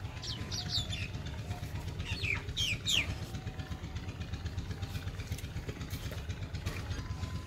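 Steady low rumble, with a bird chirping short falling notes twice: about a third of a second in and again between two and three seconds in.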